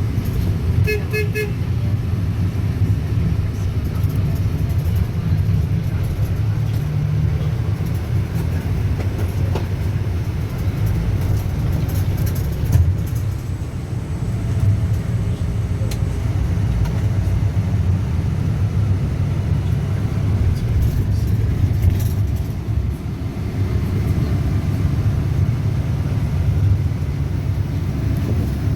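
Steady low rumble of a catamaran under way, engine and wind noise together. About a second in, a brief run of four or so quick, high beeps sounds over it.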